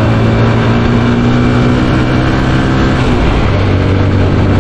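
Motorcycle engine running steadily at riding speed, its pitch creeping slowly up, with wind and road noise over the microphone.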